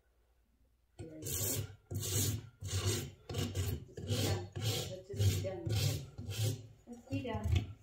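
Farrier's hoof rasp filing a horse's hoof set on a hoof stand, finishing a trim: after about a second of quiet, a steady run of about ten back-and-forth strokes, roughly one and a half a second.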